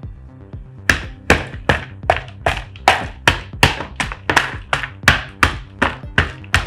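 A small wooden mallet striking a hollow dark-chocolate dome shell again and again, cracking and breaking it apart. The blows start about a second in and come evenly, about two and a half a second.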